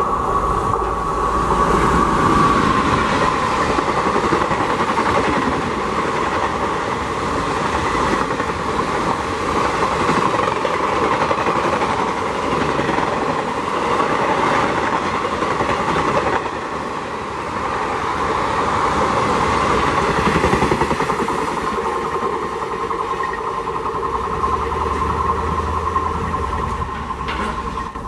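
An Indian Railways express train running through a station at speed behind an electric locomotive, its coaches rattling and clattering over the rail joints in a steady rush of wheel and rail noise.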